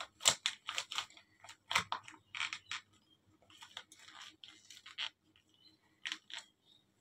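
Irregular rustling and small scratchy clicks of fingers, hair and cloth working at the ear while an earring is put in.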